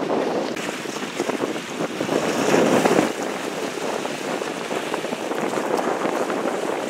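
Wind buffeting the camera microphone in gusts: a rough rushing noise that swells about two to three seconds in.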